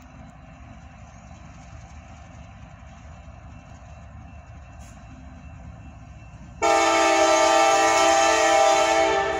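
CSX diesel freight locomotive's air horn sounding one long chord blast of about two and a half seconds, starting abruptly past the middle, over a low rumble.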